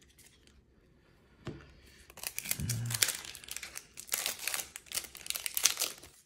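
Yu-Gi-Oh! booster pack's foil wrapper crinkling as it is handled and torn open, starting about two seconds in after a single click.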